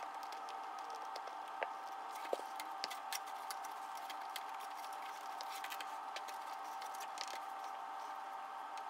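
Scattered small clicks and taps of hands removing the wheel and wheel nut from an RC crawler's axle, a few sharper ones about one and a half to three seconds in. A steady hum runs underneath.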